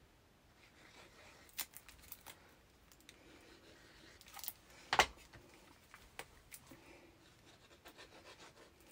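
Scattered small clicks and light rustles of paper and craft tools being handled, with one sharper click about five seconds in.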